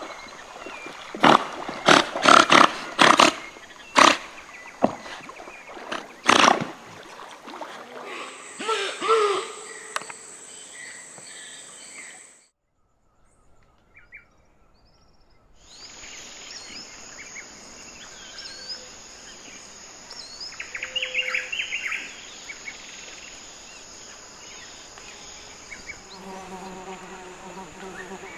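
A series of loud, sharp sounds over the first seven seconds as giant otters surface and splash in the river. After a brief drop-out, a steady high insect drone of the rainforest runs on with a few short chirps, and a low, bee-like buzz comes in near the end.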